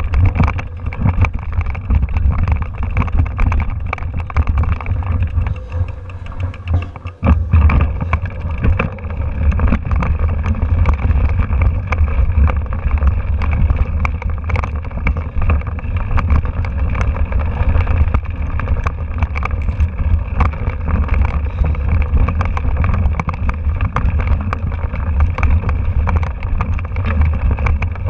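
Mountain bike ridden over a rough, rocky dirt trail, picked up through a handlebar-mounted camera: continuous rattling and knocking from the bike over stones, with heavy wind rumble on the microphone. There is a brief lull about seven seconds in.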